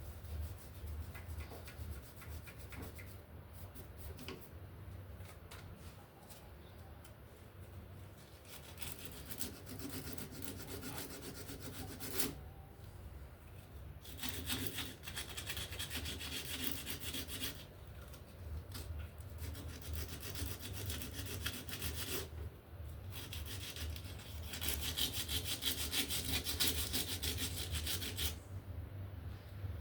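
Quick back-and-forth abrasive rubbing strokes on a part, in four bursts of a few seconds each, the last the loudest, over a steady low hum.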